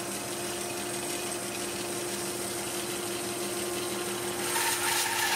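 Shop-built wooden 12-inch band saw running with a steady hum and hiss. Near the end the blade starts cutting into a log and the sound gets louder.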